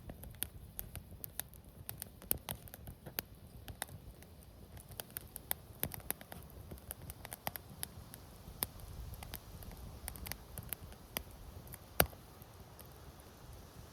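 Wood campfire crackling: irregular sharp pops and ticks, with one louder pop about twelve seconds in.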